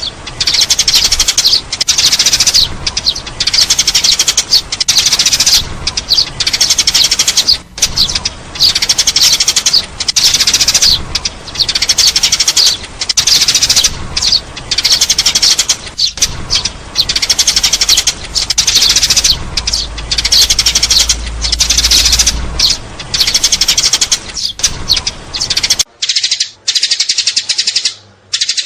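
Sparrows chirping densely and continuously, many calls overlapping with only brief pauses: a sparrow-call recording of the kind played as a lure for trapping. A low hum underneath stops near the end, after which the chirping is sparser.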